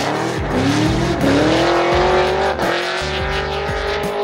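Drift car's engine at high revs on track, climbing in pitch twice early on and then holding high and steady, with tyre noise from the slide underneath.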